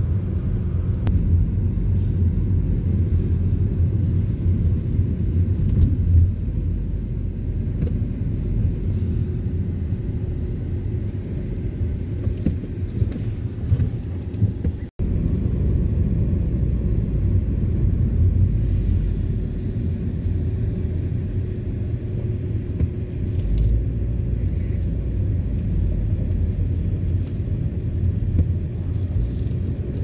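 Steady low rumble of a car driving through town streets, heard from inside the car: engine and tyre noise. The sound cuts out completely for an instant about halfway through.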